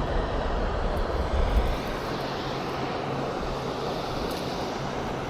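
Steady rushing of water falling over a dam spillway, an even noise with no breaks, and some low rumble in the first two seconds.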